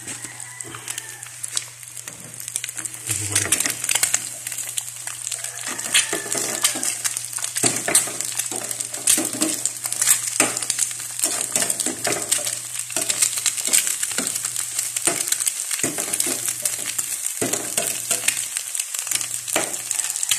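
Eggs sizzling in oil in a non-stick frying pan while being stirred and scraped with a spatula, the utensil clicking and scraping against the pan throughout.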